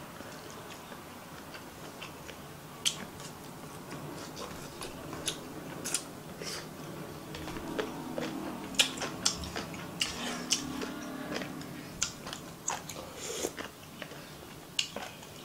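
A person eating close to the microphone: chewing ramen noodles and raw-fish sashimi, with many short, sharp wet mouth clicks and smacks, most frequent in the second half.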